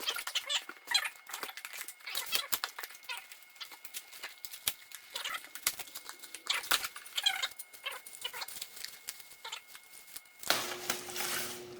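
Clicks, taps and rustles of a small car stereo and its packaging being handled, with several short high squeaks mixed in. Near the end the sound changes abruptly to a steadier noise with a low hum.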